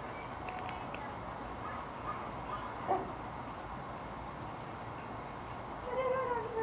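Crickets trilling steadily in a high, unbroken chorus, with a short faint call, voice-like, near the end.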